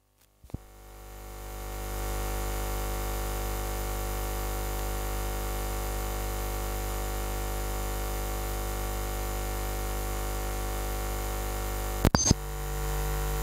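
Loudspeaker system putting out a steady hiss with mains hum, fading up over the first second or two and then holding level. A few sharp pops come about twelve seconds in, and after them the low hum is louder.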